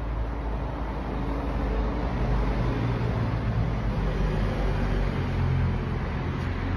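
A steady low rumble with a droning hum, like a motor vehicle running nearby, growing slightly louder over the first couple of seconds.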